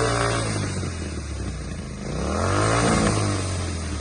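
Royal Enfield Continental GT 650's parallel-twin engine running through a freshly fitted Red Rooster Performance exhaust with its dB killer in, ticking over, then blipped once about two seconds in, rising in pitch and falling back.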